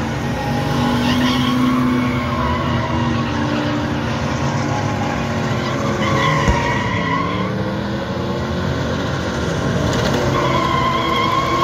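Drift cars running hard at high revs, engine pitch rising and falling, with tires squealing through long slides. A short sharp knock about halfway through.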